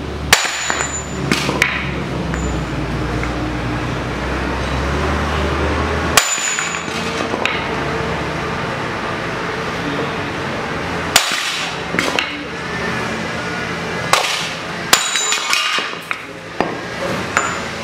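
Hammer blows knocking the integrated front hub and bearing assembly out of a Toyota RAV4 steering knuckle held in the air: a series of sharp, irregularly spaced metal strikes, with a steady low hum underneath.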